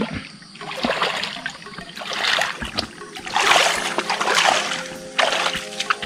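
Bare feet wading and splashing through shallow water on a flooded footpath, in a series of uneven splashes, loudest around the middle.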